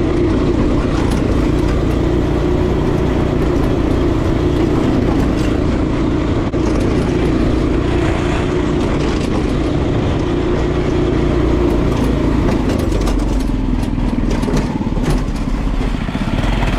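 A go-kart's small engine running steadily under way, heard from on board, with rattling clicks from the kart's frame. About three-quarters of the way through, the engine note drops lower.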